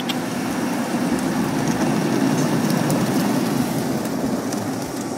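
Automatic car wash running over a car, heard from inside the cabin: a steady rush of water spray and wash equipment on the car's body.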